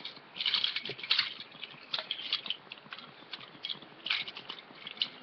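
Keychain items clicking and rattling as they are handled close to the microphone, in irregular light taps.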